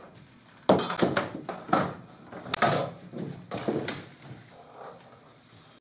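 Large sheets of clear plastic film rustling and crackling as they are dragged and bunched over a wooden floor, in a string of irregular bursts that die down after about four seconds.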